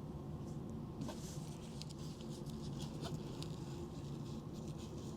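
Faint scattered scratching and light ticks of fingers pressing and rubbing a glued patch onto an air mattress, over a steady low hum.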